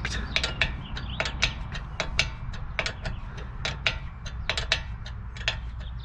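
Ratcheting wrench clicking in quick, irregular runs as it turns the nut of a makeshift bolt-and-nut press, forcing a corroded, stuck brake caliper pin out.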